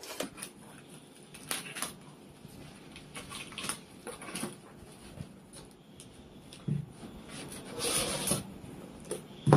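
Hands unpacking a cardboard parcel of books: cardboard and wrapping rustling, with scattered taps and knocks as the box and books are handled. There is a longer rustle about eight seconds in and a sharper knock at the end.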